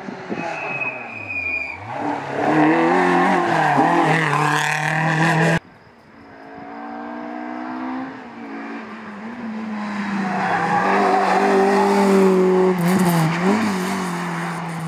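Rally car engines revving hard on a tarmac stage. The first car's engine climbs in pitch as it approaches and cuts off abruptly about five and a half seconds in. A second car's engine is then heard, building as it approaches, with quick dips in pitch near the end as it shifts or lifts.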